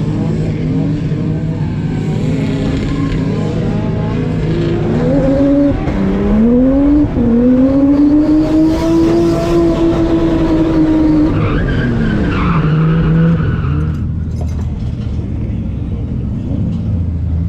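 Drift car engine running steadily, then revving up through a couple of gear changes about five seconds in, held high for several seconds and dropping away, with tyres squealing as the revs fall.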